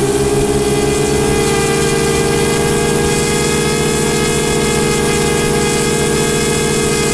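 Twin Laser 120 four-stroke glow engines of a large RC model P-38 Lightning running together, turning three-blade propellers. The pitch rises slightly about a second in and then holds steady.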